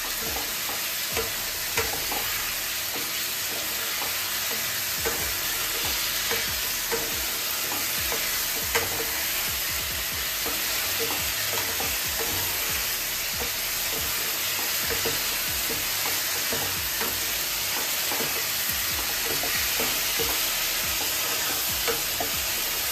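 Whole pointed gourds sizzling steadily as they are sautéed in spiced masala in a non-stick kadai, with a spatula stirring and scraping them around the pan in small, frequent clicks.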